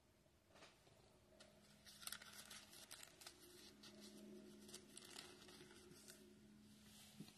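Near silence: faint rustling and small crinkling ticks from things being handled on a desk, starting about a second and a half in, over a low steady hum.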